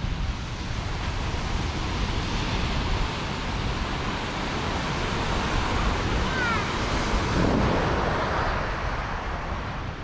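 Surf breaking on the shore, with wind rumbling on the microphone; the sound swells briefly about three quarters of the way through.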